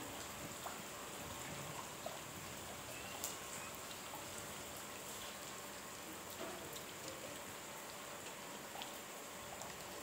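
Steady rain falling on brick paving and garden foliage, an even hiss with scattered sharper drops and drips.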